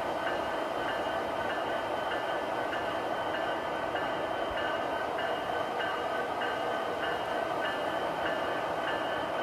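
MTH model freight train running along its track: a steady hum with a regular click a little under twice a second.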